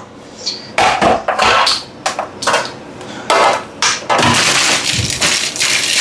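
Plastic bag of grapes crinkling and rustling in irregular bursts, with a few light knocks, as it is handled and set down to be weighed.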